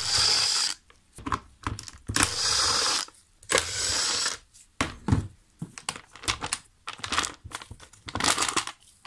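Makita cordless driver spinning out the top-cover screws of a Stihl MS 391 chainsaw in three short runs of under a second each. After that come light clicks and knocks of the plastic cover being handled and lifted off.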